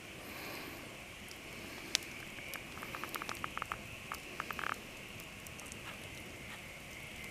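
Campfire crackling, a quick run of small pops and snaps about two seconds in, over a steady high chirring of night insects.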